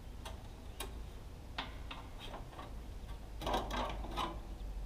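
Light metallic clicks and clanks, a few scattered ones and then a quicker, louder cluster near the end, as a dulled band-saw blade is worked off the wheels of a Woodland Mills MH126 portable bandsaw mill.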